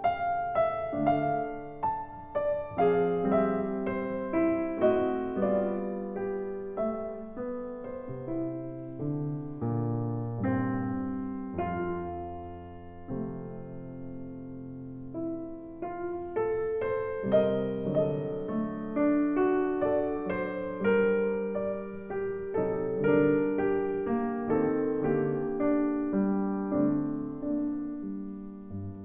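Solo piano music playing a gentle, flowing melody over chords; it thins to a few low sustained notes about halfway through, then picks up again.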